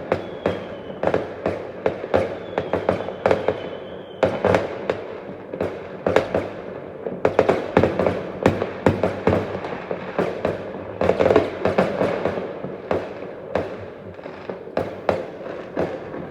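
Fireworks going off in a rapid, irregular string of bangs and crackles, densest in the middle, with a faint high whistle dipping in pitch twice in the first few seconds.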